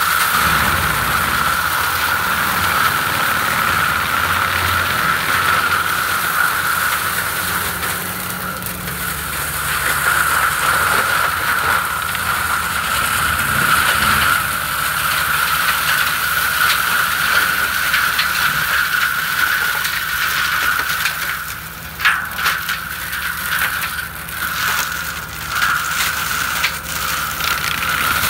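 FAE forestry mulcher on a Fendt 936 tractor shredding brush: a steady high whine over the tractor's six-cylinder diesel engine under load. From about two-thirds of the way through come sharp cracks and rattles as woody stems are smashed.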